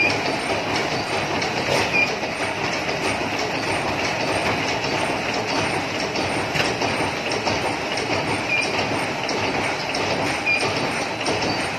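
PP plastic bag cold-cut hot-seal cutting machine running: a steady, dense mechanical clatter with a few short high squeaks.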